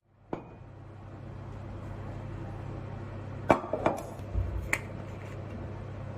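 Dishes and cutlery clinking and knocking together several times, with the loudest knocks about three and a half to five seconds in, over a steady low hum that starts at the outset.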